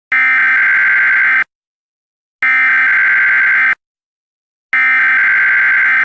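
Emergency Alert System SAME header: three loud bursts of high, rapidly switching digital data tones, each just over a second long and about a second apart. This is the coded header that opens an EAS alert.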